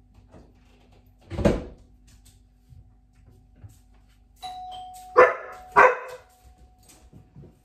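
A doorbell chime rings a little past halfway, and a spaniel barks twice, half a second apart, right after it. Earlier, about a second and a half in, there is a single short loud sound.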